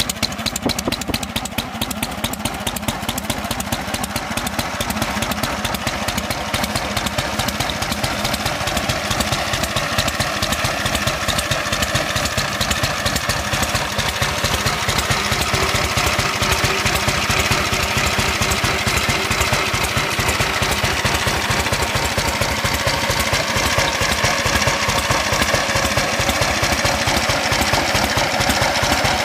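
1947 Harley-Davidson Knucklehead's overhead-valve V-twin engine idling steadily through its chrome exhaust pipes, an even run of firing pulses.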